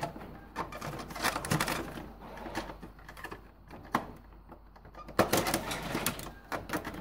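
Irregular plastic clicks and knocks, with a denser run about five seconds in, as a small flat-blade screwdriver presses into and pries at the snap latches of an Epson XP-342 printer's plastic side panel.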